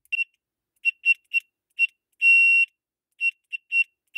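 Electronic horn of an FH5501 4-in-1 bicycle light being pressed repeatedly: a shrill, single-pitched beep in short blasts, with one longer blast about two seconds in.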